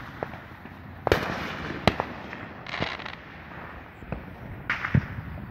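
Fireworks going off in the distance: four sharp bangs, irregularly spaced about a second or more apart, with two brief crackling hisses between them.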